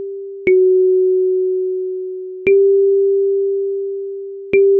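Kalimba tines plucked one at a time, about every two seconds. Each note rings clearly and fades slowly: F#4 about half a second in, then G4 twice, a slow melody line.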